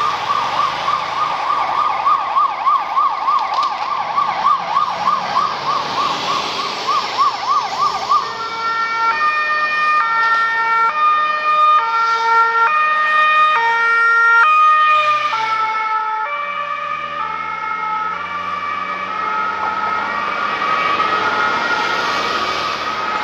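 Ambulance sirens on an emergency run: a fast yelp sweep until about eight seconds in, then stepping two-tone hi-lo wails, with more than one siren overlapping. The tones drop slightly in pitch about fifteen seconds in as the ambulances pass, and they get a little quieter after that, with road traffic underneath.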